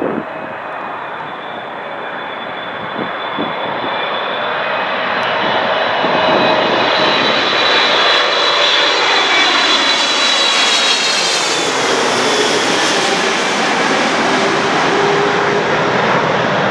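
Boeing 777 freighter's twin GE90 turbofans on final approach with gear down, growing louder as the jet comes in low overhead. There is a whine of several high tones over a dense rushing noise, and the pitch drops as it passes over, about eleven seconds in, then stays steady and loud.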